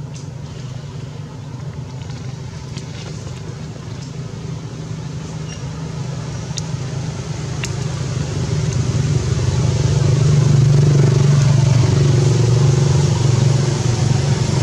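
A motor vehicle's engine giving a steady low drone that grows louder through the middle and stays strong near the end, like a vehicle drawing near.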